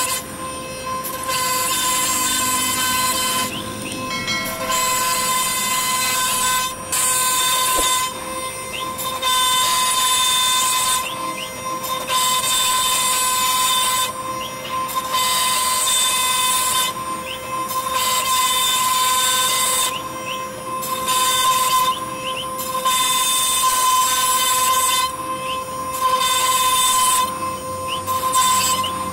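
CNC router spindle whining steadily at one fixed pitch while its small bit cuts a lattice pattern into a wood panel. A loud high cutting hiss comes in surges of a second or two, broken by short quieter gaps.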